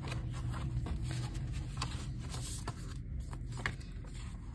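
Paper and card rustling and scraping as an album's photobook pages and a stiff card insert are handled and flipped, with small sharp clicks of card on card.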